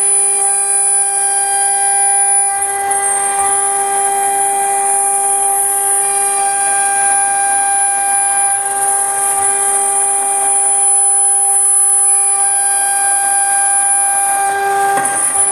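CNC router spindle cutting aluminium: a loud, steady high-pitched whine made of several fixed tones, with the hiss of the cutter in the metal.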